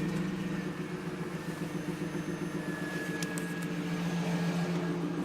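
1999 Pontiac Trans Am's LS1 5.7-litre V8 idling steadily just after start-up.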